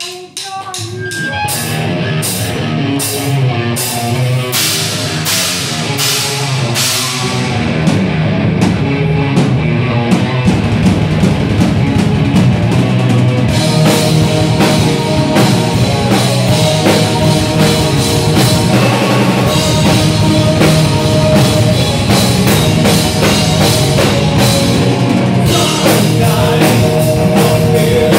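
Live heavy metal band playing: drums, electric guitars and bass. It opens with a run of evenly spaced drum and cymbal hits, and the full band comes in at a steady, loud level about seven seconds in.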